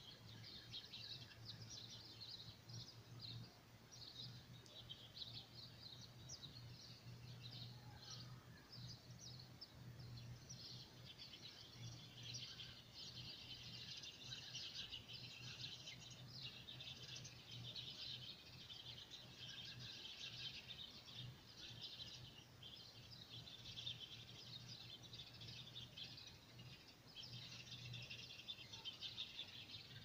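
Many small birds chirping at once, a faint, dense chorus of high chirps that grows thicker about halfway through, over a steady low hum.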